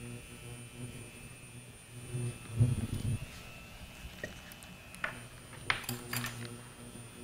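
Induction cooktop humming under a frying pan as it heats oil, a low electrical hum that swells and fades in spells with a faint high whine above it. A few light metal clinks of a measuring spoon being set down come about five to six seconds in.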